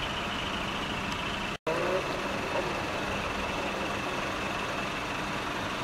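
Diesel truck engines running as decorated trucks drive slowly by: a steady mix of engine and exhaust noise with a faint steady high whine. The sound drops out for an instant about a second and a half in.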